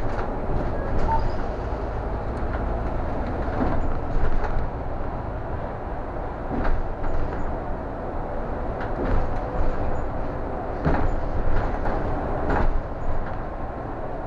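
Cabin noise of a city bus on the move: a steady low rumble under a faint steady whine, with scattered rattles and knocks.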